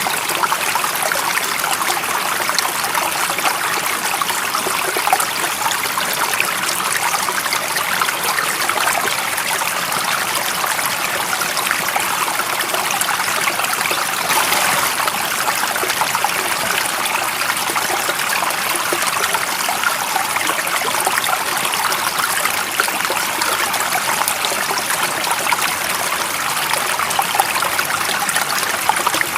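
Stream water running and trickling over rocks, a steady, even rush with fine splashing detail.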